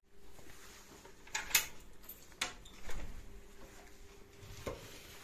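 A few sharp clicks and knocks, a couple of seconds apart, from a wooden door and its hanging metal latch chain being handled.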